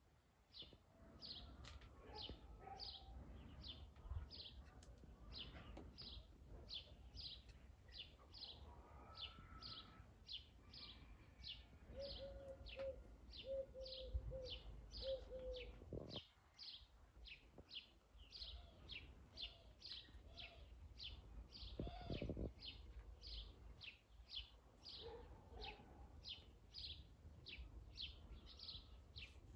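A small bird repeating one short, high chirp over and over at a steady pace of about two or three a second. About halfway through, a lower run of short notes joins it.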